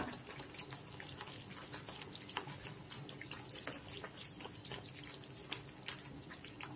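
Thick palm jaggery halwa being stirred with a spatula in a nonstick pan: faint wet squelching with many small irregular clicks and pops. The halwa is cooked down to the stage where the absorbed ghee starts to separate out.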